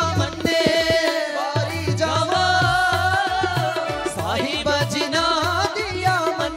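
Live devotional bhajan music: a harmonium, a hand drum keeping a steady beat, and singing voices.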